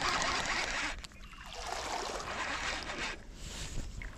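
Fishing reel being cranked to bring in a hooked bass, in two spells of fast winding, with the fish splashing at the surface.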